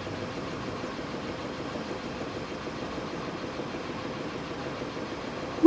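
Steady hum and hiss of a train standing at idle with its onboard equipment running.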